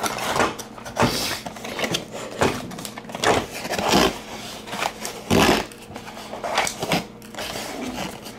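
Cardboard toy box and its insert being handled: irregular rustling, scraping and light knocks as the thin plastic retaining rods are worked out of the cardboard.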